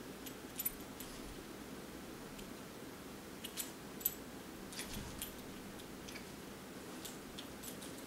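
Scattered light clicks and clinks, a dozen or so in irregular clusters, as a dog shifts and noses about on its bed inside a wire crate, over a faint steady hum.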